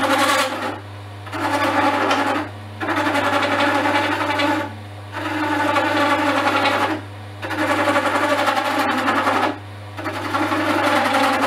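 Turning chisel cutting into a spinning olive wood pen blank on an Axminster Craft wood lathe, in repeated passes of one to two seconds with short breaks between them. A steady low hum runs underneath.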